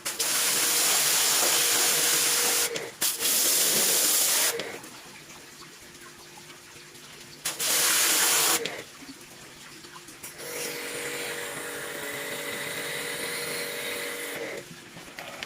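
Water sprayed in bursts from a motor-driven pump sprayer, with the pump's steady hum under the hiss: a long spray broken briefly a few seconds in, another about eight seconds in. Later comes a quieter steady hiss with the hum.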